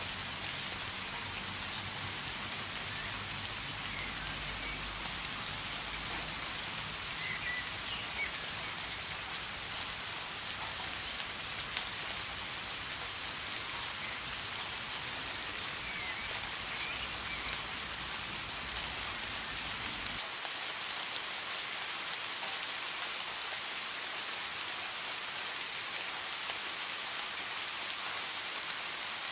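Steady rain falling, an even hiss of many raindrops. A faint low rumble beneath it cuts off suddenly about two-thirds of the way through.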